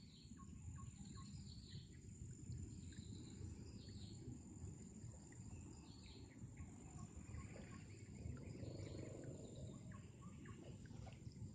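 Faint riverside ambience: birds chirping in short calls over a low steady rumble, and near the end a soft splash of water draining from a lift net as it is raised out of the river.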